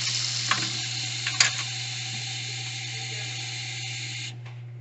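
Water running from a kitchen faucet into a plastic bottle, a steady hiss that cuts off suddenly near the end. Two small clicks come about half a second and a second and a half in.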